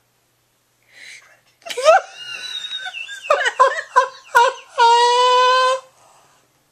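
Young baby vocalizing: a run of short, high-pitched squeals and cries starting about two seconds in, ending in one long, steady squeal about a second long.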